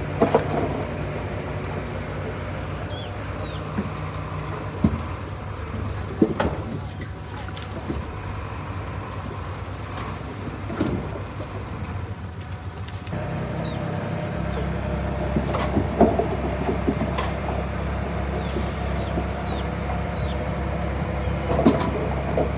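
Komatsu D31P bulldozer's diesel engine running steadily, with scattered sharp clanks and knocks over it. About thirteen seconds in the engine note gets deeper and a little louder.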